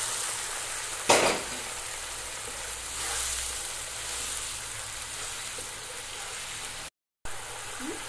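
Masala gravy sizzling and bubbling hard in a non-stick frying pan just after hot water has been poured onto the fried spices, with a spatula stirring; a sharp knock about a second in. The sound cuts out for a moment near the end.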